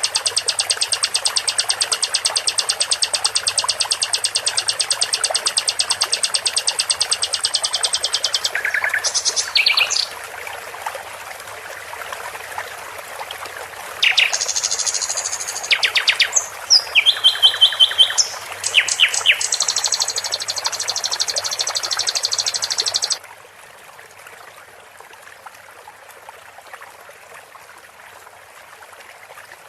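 Songbird calls over a steady rush of flowing water: first a fast, even string of high chirps, then scattered short calls and trills. The birdsong stops about three quarters of the way through, leaving only the running water.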